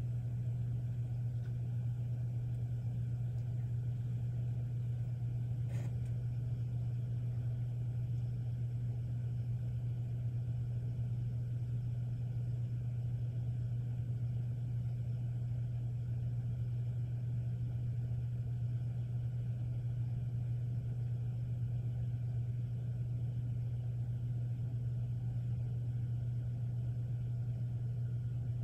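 Steady low-pitched hum that does not change, with one faint click about six seconds in.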